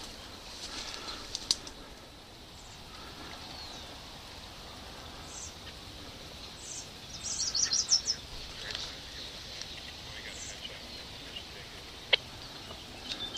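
Wild songbirds chirping in short, high calls, with a quick run of rapid chirps about eight seconds in, over a low steady background hiss. Two sharp single clicks break through, one near the start and one near the end.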